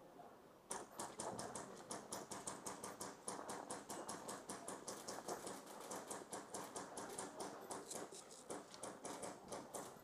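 Airsoft gunfire and BB hits: an uneven, rapid run of sharp clicks, about five a second, that starts after a brief lull.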